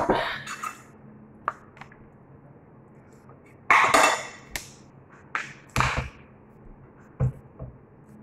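Metal spoon and fork clinking and scraping on a ceramic plate in several separate bursts, the loudest at the very start and about four seconds in.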